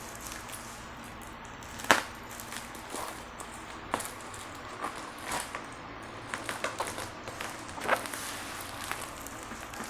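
Packaging of a parcel being handled and opened, with scattered crackles, clicks and taps; the sharpest comes about two seconds in.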